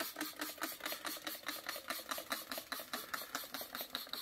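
A small machine running with a fast, even clatter, about eight or nine beats a second.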